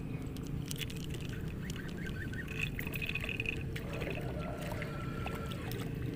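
Spinning reel being cranked in with scattered clicks while a hooked fish splashes at the water's surface, over a steady low rumble. A brief high call sounds near the middle.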